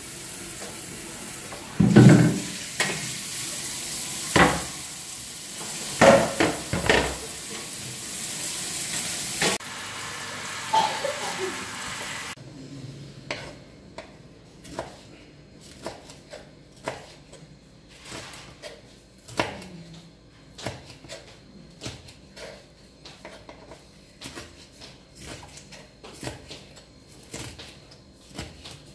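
A steady hiss with clattering knocks for the first twelve seconds or so. Then a kitchen knife slices green bell pepper on a wooden cutting board, with a light chop about once or twice a second.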